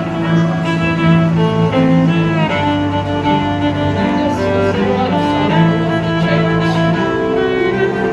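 Music played by bowed strings, violins over cello, in slow held notes.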